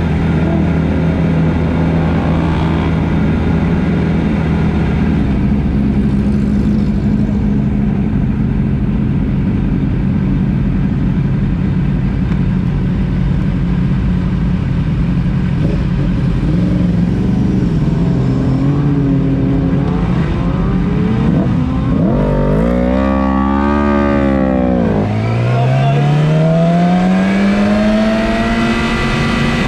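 Sport motorcycle engine idling steadily, heard close up from the bike itself, then revved up and back down about 22 seconds in. Near the end it pulls away, its pitch climbing as it accelerates.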